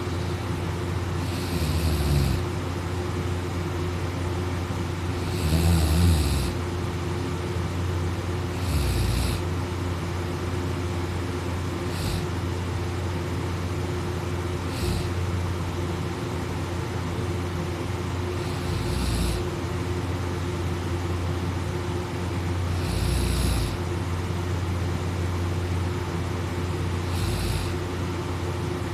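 A sleeping person snoring, about eight snores each 3 to 4 seconds apart, over a steady low hum.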